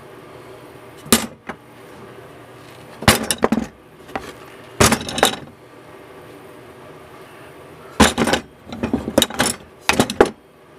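Steel knife blades clattering against each other as they are laid onto a pile of forged knives: about six short clusters of sharp metallic clinks, with a faint steady room hum between them.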